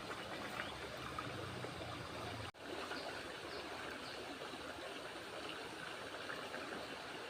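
Steady rush of a flowing stream, with a sudden brief break about two and a half seconds in.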